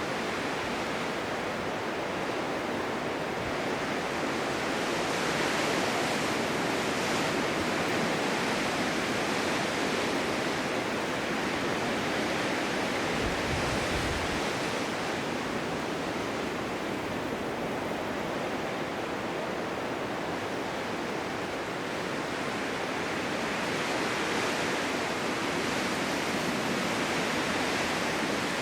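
Blizzard wind: a steady rushing noise that swells in gusts about six seconds in and again near the end, with a brief low rumble about halfway through.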